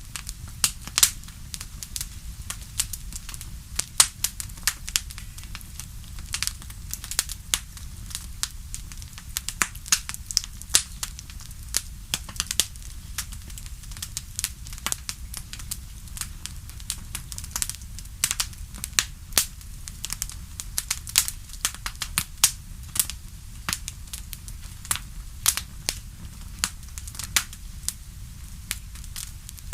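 Wood fire in a fireplace crackling: many sharp, irregular pops and snaps, several a second, over a steady low rumble of the flames.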